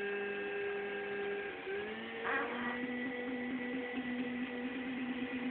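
Steady held pitched tones that slide up to a slightly higher held note about two seconds in, with a brief noisy burst just after the change.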